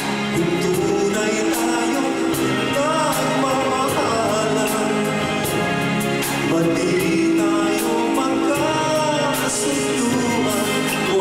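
Live band music with male voices singing a melody into microphones, backed by a drum kit whose cymbals tick at a steady beat.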